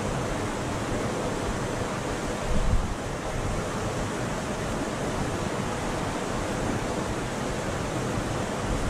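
Creek water running over a shallow, rocky riffle: a steady rush, with wind buffeting the microphone in the low end and one brief louder low buffet about two and a half seconds in.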